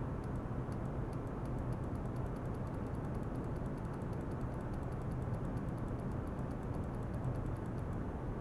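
A steady low hum with faint, rapid ticking, several ticks a second.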